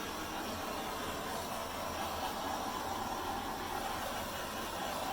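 Hairdryer blowing air, a steady hiss with no change in level.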